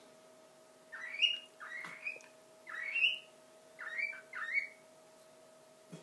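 Cockatiel whistling five short notes in quick succession, each sliding upward, starting about a second in.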